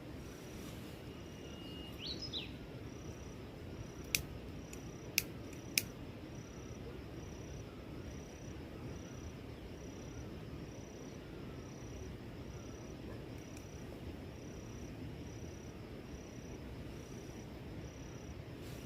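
Outdoor forest ambience: a steady low rushing noise with an insect chirping in an even, repeated pulse. A short high whistle-like call comes about a second in, and three sharp clicks sound between about four and six seconds in.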